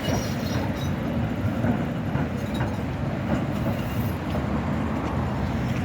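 Zagreb tram running on its rails: a steady rumble, with faint high-pitched squeaks near the start and again about four seconds in.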